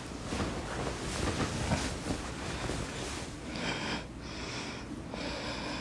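Person snoring with snorting, wheezy breaths; from about halfway through, a whistling wheeze comes and goes roughly once a second.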